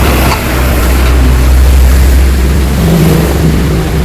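Yamaha RX-King's two-stroke single-cylinder engine running loudly and steadily through an exhaust muffler bored out for a crisp, growling note.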